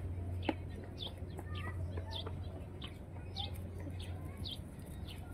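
A bird chirping over and over: short, high, falling notes about every half second, over a steady low hum.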